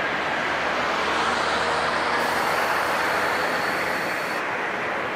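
Jet airliner's engines running: a loud, steady rushing noise, with a thin high whine added for a couple of seconds in the middle.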